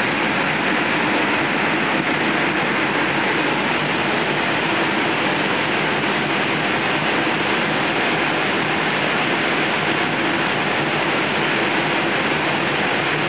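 Steady rushing noise of electric air blowers keeping inflatable play structures up, with a faint steady hum under it.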